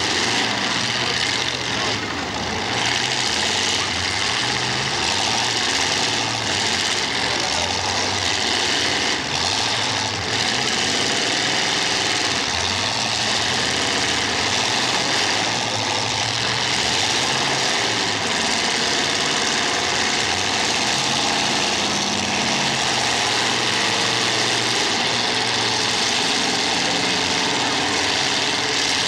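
Several race car engines running hard together, the pitch rising and falling as the cars go by and lap the track.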